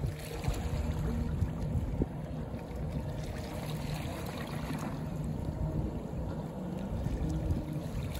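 Steady low rumble of wind and water at the shoreline, with a faint steady hum underneath.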